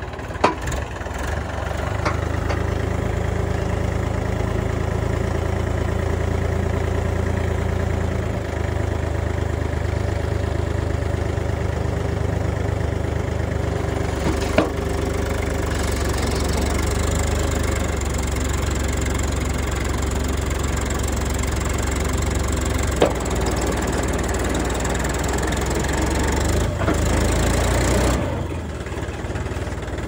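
Mahindra 295 DI Turbo tractor's diesel engine running steadily at raised speed while its hydraulics tip a loaded trailer, with three short sharp knocks; the engine drops back to a lower speed a couple of seconds before the end.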